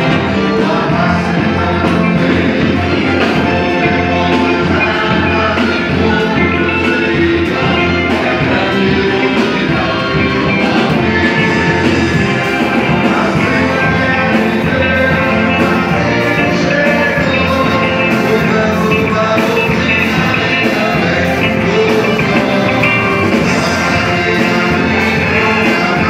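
Background music: a song sung over a band with a steady beat.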